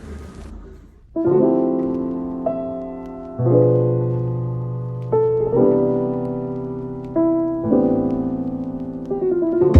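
Background music: slow piano chords that start about a second in, a new chord roughly every two seconds, each ringing on and fading. A brief hiss is heard at the very start.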